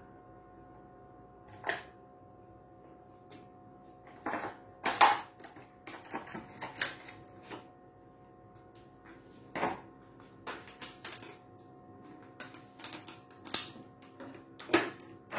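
Irregular clicks and clacks of small hardware being handled: the old hard drive being worked off its metal mounting bracket during an iMac hard-drive-to-SSD swap. The loudest knocks come about five seconds in and near the end, over a faint steady hum.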